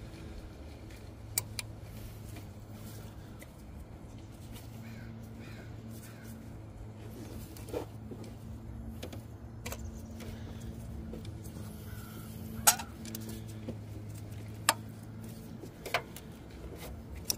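Sharp plastic clicks and knocks as a hand works a purge valve loose from its bracket in a car's engine bay, the loudest about two-thirds of the way in, over a steady low hum.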